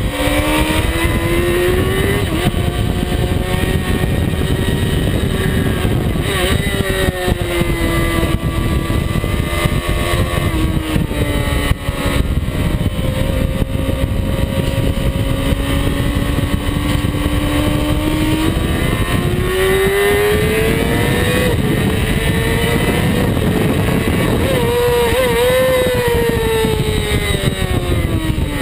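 Inline-four 600cc supersport motorcycle engine heard onboard at high revs, its pitch climbing and falling with the throttle through corners, wind rushing over the microphone.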